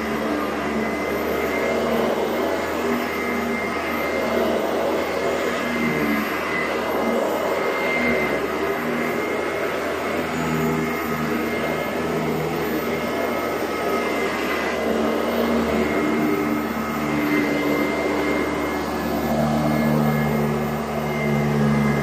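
Sanitaire SC886 upright vacuum cleaner running steadily as it is pushed over a rug, a high whine over its motor drone. Its lower hum swells and fades as the vacuum is worked back and forth, and is strongest near the end.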